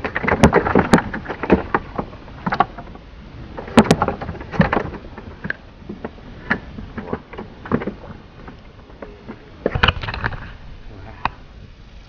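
Irregular knocks, thumps and clatter on a small fishing boat, in clusters near the start, around four seconds in and around ten seconds in, over a low steady background.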